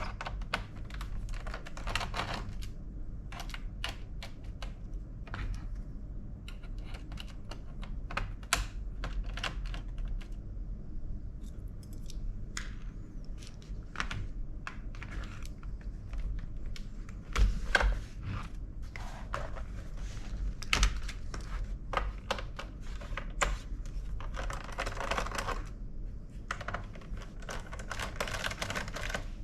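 Irregular clicks, taps and short scrapes of plastic laptop parts and small tools being handled while a Dell Inspiron 15 3000-series laptop is taken apart, with a few louder knocks a little past halfway.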